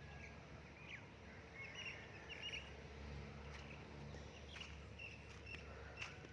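Faint outdoor ambience: small birds chirping in short, scattered calls over a steady low hum, with a few light clicks near the end.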